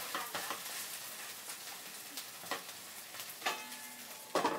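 Shungiku (garland chrysanthemum) chijimi pancake sizzling in oil in a frying pan, just flipped onto its second side. A few light knocks and clinks of the spatula and pan lid come through the sizzle, the loudest just before the end.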